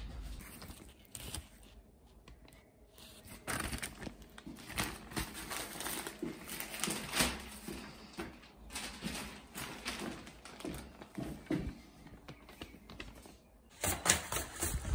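Irregular clicks, knocks and light clatter of objects being handled and moved about in a small room. The sounds are sparse at first, go on fairly steadily through the middle, and become louder and denser near the end.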